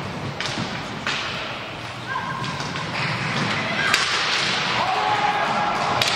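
Inline hockey play in an echoing sports hall: skates rolling on the hard floor under a steady noise, broken by several sharp cracks of sticks striking the puck or each other.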